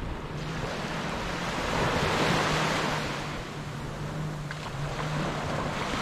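Small waves washing onto the beach, swelling to a peak about two seconds in and easing off, with wind on the microphone.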